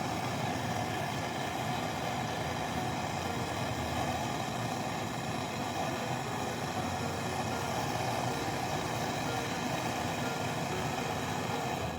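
A steady, unchanging mechanical running noise with a hiss.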